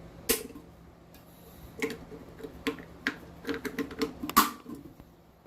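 Plastic parts of a toilet fill valve clicking and knocking as the valve is put back together after its rubber seal is flipped: a scattered series of short clicks, the loudest near the end.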